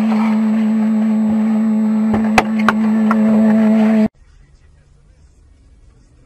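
A vehicle's steady drone holding one constant low pitch over road noise, with two sharp knocks a little past two seconds in. About four seconds in the sound cuts off abruptly, leaving only a faint hiss.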